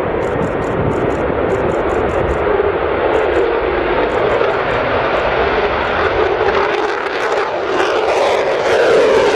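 F-15E Strike Eagle's twin jet engines roaring at takeoff power as it rolls, lifts off and climbs away. The roar is steady and grows louder with a shifting pitch as the jet passes near the end.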